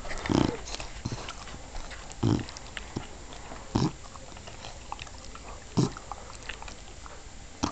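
English bulldog snoring while awake: short, low snores, one about every two seconds.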